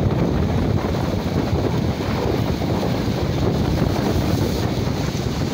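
Wind buffeting the microphone over the steady rush of rough surf breaking on the shore.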